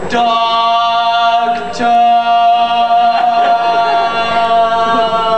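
A voice holding one long, loud note that starts suddenly and stays on a single pitch for several seconds, sagging slightly near the end.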